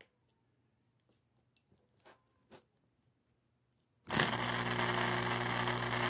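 After a couple of faint clicks, an Amana washing machine's drain pump switches on about four seconds in and runs dry with its impeller spinning freely: a loud steady hum with a rough buzz over it. The pump had been seized and has just been freed.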